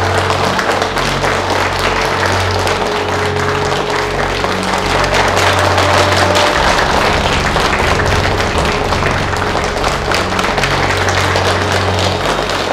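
An audience applauding steadily over background music with sustained low notes.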